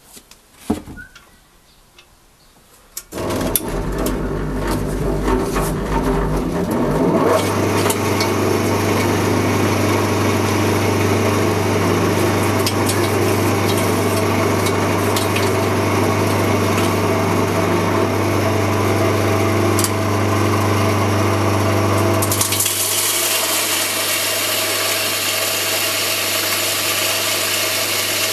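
An old electric grain crusher is switched on about three seconds in, after a few faint clicks. Its motor spins up and runs with a steady hum and a constant grinding noise as it mills a mixed grain feed into chicken feed. About 22 seconds in the deep hum drops away and the grinding turns brighter and hissier.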